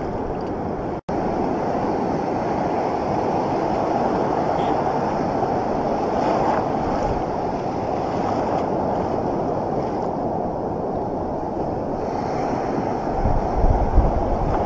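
Ocean surf washing and breaking in the shallows, a steady rush of water and foam. The sound cuts out for an instant about a second in, and low wind buffeting on the microphone joins near the end.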